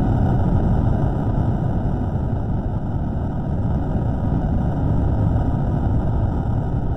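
Steady, loud low rumbling noise with no distinct tones: a microphone recording slowed down several times over.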